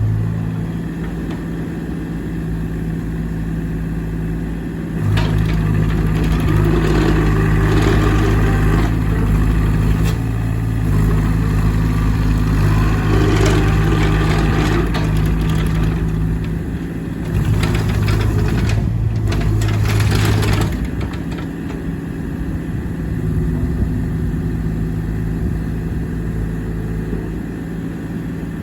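JCB 8030 mini excavator's diesel engine running steadily. From about five seconds in it grows louder and busier for some fifteen seconds, with a short dip partway through, then settles back to a lower steady run.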